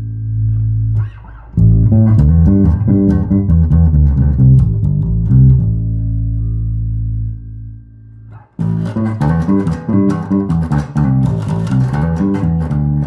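Electric bass guitar, a luthier-built copy of a Fodera body, played solo: a held low note, then two quick runs of notes with sharp, percussive attacks, separated by a brief pause about halfway through.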